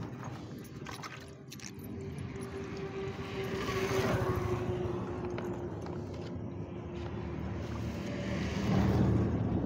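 Engine hum, a single steady tone that sinks slightly in pitch. It swells about four seconds in and again near the end.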